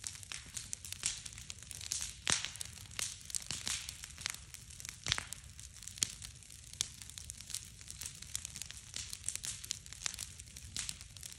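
Large bonfire of stacked wood crackling, with frequent irregular pops and snaps over a steady hiss. A few louder snaps come about two and five seconds in.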